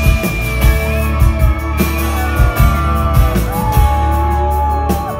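A live rock band playing an instrumental passage between vocal lines: long held lead notes that slide in pitch, over a steady bass and drums.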